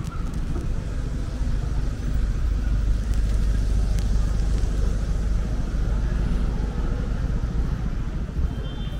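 City street ambience: a steady low rumble of road traffic passing, growing a little louder after about a second and a half.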